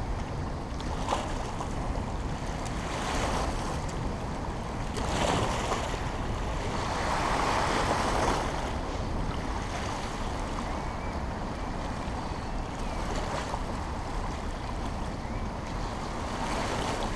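Dam spillway outflow, about 1000 cubic feet per second of water, rushing out of the gates and churning over the rocky bank in a steady rush that swells a little now and then.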